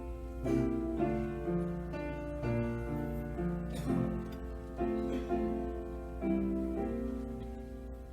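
Slow instrumental interlude music, piano-like notes and chords changing about every half second, over a steady low hum.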